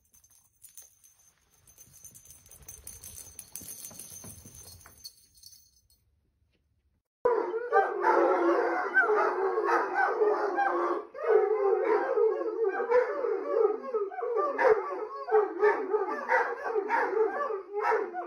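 Several large rough-coated hounds howling together in long, wavering, overlapping howls, starting about seven seconds in after a short silence. Before that, only faint scuffling.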